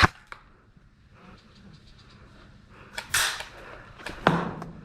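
Airsoft guns firing: a sharp pop right at the start, then two more shots about three and four seconds in, each with a short ring after it.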